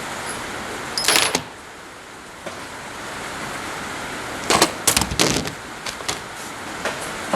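Tools and small metal parts clattering and jangling as they are handled and sorted in an old toolbox: a short burst about a second in and a longer run of clinks around five seconds in, over a steady background hiss.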